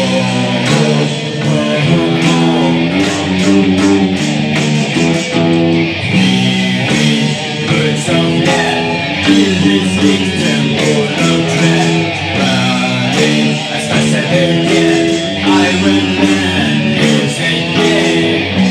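A hard rock band playing live: electric guitar and bass guitar riffs repeating in a steady rhythm, with a singer's vocal over them.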